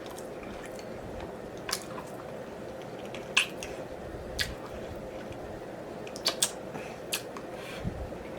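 Close-miked mouth sounds of eating: wet smacking and sucking clicks at irregular intervals, the sharpest about three and a half seconds in, over a faint steady hum.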